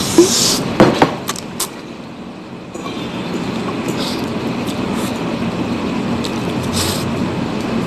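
Spaghetti being slurped and eaten close to the microphone: a loud slurp at the start, a few wet mouth clicks about a second in, then chewing and another short slurp near the end over a steady background noise.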